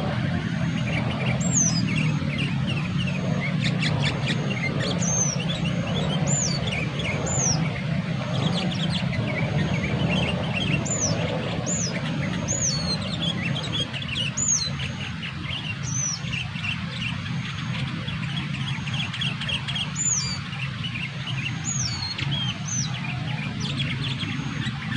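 Sooty-headed bulbuls (kutilang) calling: a steady run of short chirps and repeated high, downward-curving notes, over a steady low rumble.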